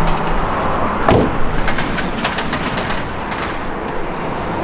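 VW Golf Mk6 1.4 TSI driving, engine and road noise heard from inside the car, with a sharp burst about a second in and then a run of quick clicks for about two seconds.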